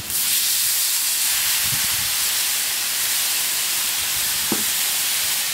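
Marinated carne asada sizzling on a hot 36-inch Blackstone flat-top griddle: a loud hiss that starts suddenly as the meat hits the steel, then holds steady.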